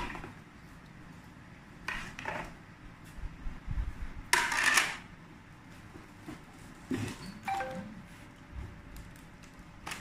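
Hard plastic toy pieces clattering and rattling as they are handled, in a few short bursts, the loudest and longest a rattle about four seconds in.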